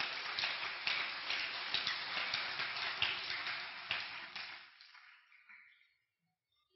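A congregation applauding, many hands clapping together, the clapping dying away about five seconds in.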